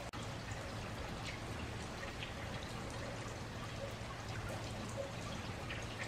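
Steady rain, scattered drops pattering on wet pavement, with rainwater trickling out of a downspout onto the ground. A faint low steady hum lies underneath.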